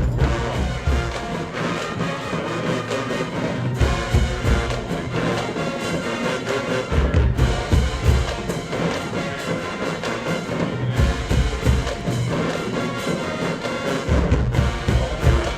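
Marching band playing, brass and drums together, with heavy low sousaphone notes and drum hits recurring every three to four seconds.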